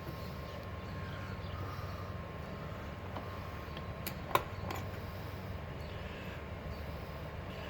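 Small hand-held plastic retainer clip being pried out of a connector: a single sharp click a little over halfway through, with a few fainter ticks around it. A steady low hum with a faint high tone runs underneath.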